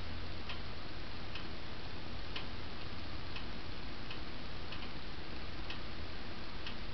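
A John Deere lawn tractor's small engine running steadily, with a faint tick about once a second.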